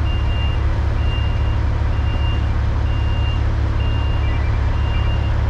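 Heavy-equipment reversing alarm beeping steadily about once a second over the steady low rumble of a diesel engine, from the telehandler working the debris.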